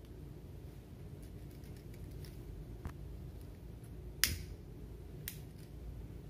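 A few short sharp clicks over a low background hum, the loudest a little past the middle: a pocket lighter being clicked to melt and fix the cut macrame cord ends.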